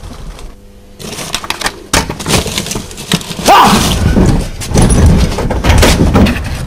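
A person scrambling out of a car through its door: a run of knocks, thumps and rustling from the body, seat and door.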